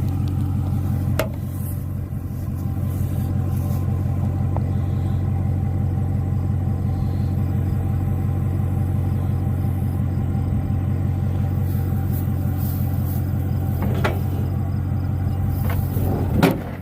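A motor vehicle's engine running steadily at an even low pitch, with a brief knock about a second in and another near the end.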